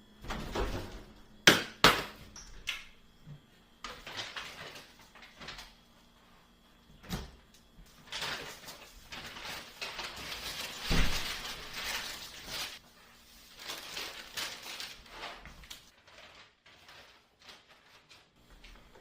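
Household handling noises: a couple of sharp knocks, like a door banging, about a second and a half in, then stretches of rustling and clattering with scattered clicks, loudest about eleven seconds in.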